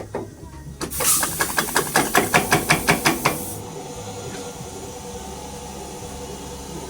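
An engine being turned over for a blow-by test, puffing air in rhythmic hissing pulses about five or six a second for under three seconds, then stopping, leaving a steady low hum.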